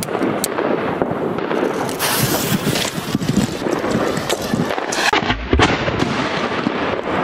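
Fireworks going off: a dense, continuous run of crackling and bangs, with a deep boom about five seconds in from the burst of an 8-inch aerial shell fired from a mortar tube.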